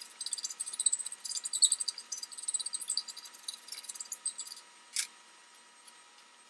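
Hand file rasping in repeated back-and-forth strokes across a welded steel eye on an auger bit held in a vise, smoothing the rough weld. The filing stops about four and a half seconds in, followed by one sharp click about a second later.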